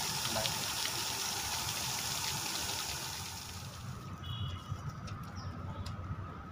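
Shallow water running and trickling over stones, a steady rush that drops away about four seconds in. After that a quieter outdoor background remains, with a few light clicks and one short high chirp.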